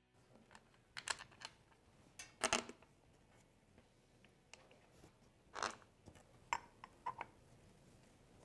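Scattered light clicks and knocks of a KTM 690 engine's clutch cover and its bolts being handled and set in place on the engine case, the loudest a short cluster about two and a half seconds in.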